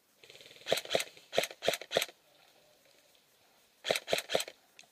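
Airsoft gun firing single shots, five sharp cracks in about a second and a half, then three more in quick succession about two seconds later.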